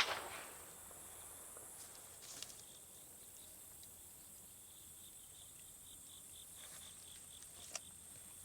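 Faint, steady chirring of insects in a summer field, with a pulsing high chirp in the middle. A brief sharp knock right at the start.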